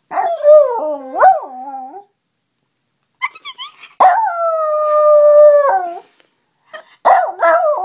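Yorkipoo howling in long, pitched notes that rise and fall, set off by a person's beeping noises.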